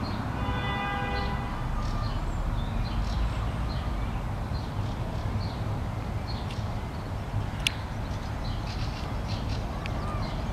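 Outdoor background sound: a steady low rumble with faint, scattered high chirps. A single held, even-pitched tone lasts about a second near the start.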